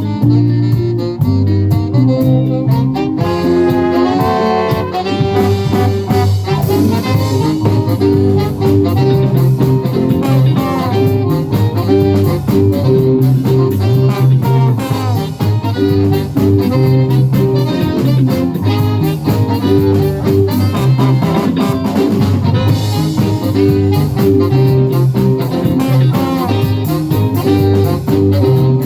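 Live band playing a jazz-styled original song, with a steady repeating bass line under drums and a saxophone.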